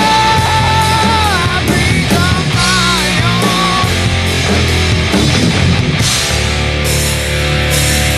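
Instrumental break of a loud rock song: drums and distorted band under a lead line that holds one long note for about a second and a half, then plays short bending phrases.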